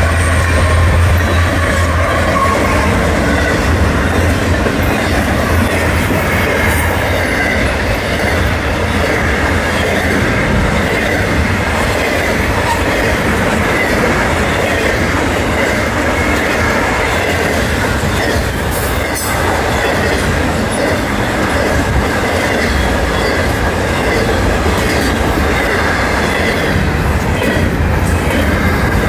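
A fast freight train passing close by. The low engine hum of the last diesel locomotives fades in the first couple of seconds. Then a long string of double-stack container cars runs past with a steady, loud noise of wheels on rails.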